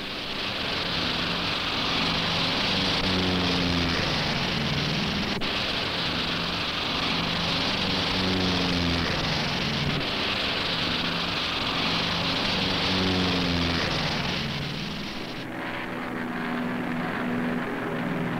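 Twin radial piston engines of C-119 cargo planes running at high power for takeoff and flight: a loud, steady engine and propeller drone with a hiss over it. The hiss drops off abruptly about fifteen seconds in.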